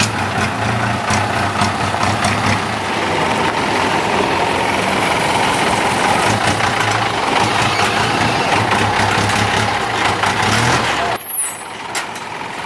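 Six-wheel dump truck's engine running steadily as the truck drives and backs into position, dropping suddenly in loudness near the end.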